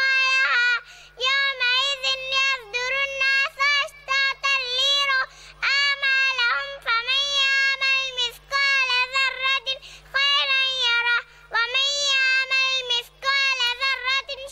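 A young girl chanting in a high, sing-song voice, in held phrases of one to two seconds with short breaks between them.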